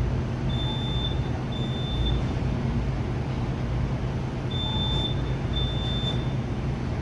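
A car engine idling with a low, steady hum. A pair of high-pitched electronic beeps sounds twice, about four seconds apart.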